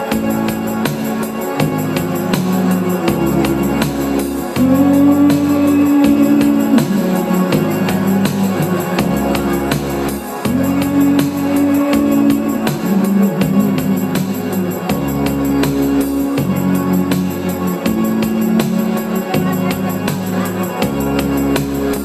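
Live dance music from an electronic keyboard: an instrumental passage of a song with a steady drum-machine beat, a stepping bass line and held organ-like chords.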